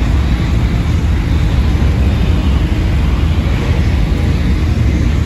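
Loud, steady low rumble of vehicle engines running.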